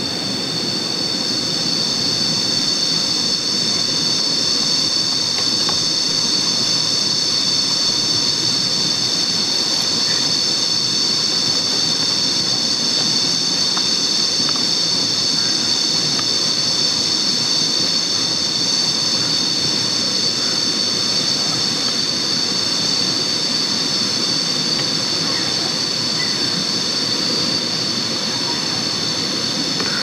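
A chorus of cicadas: a steady, high-pitched drone that never breaks, over a low rushing noise.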